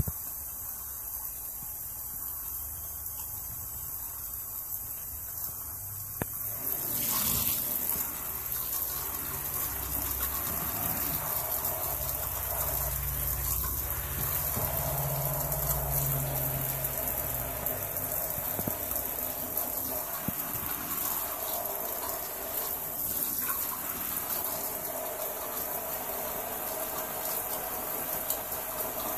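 Shower spray running onto a pair of boots and splashing on the shower floor: a steady rush of water that grows louder about seven seconds in.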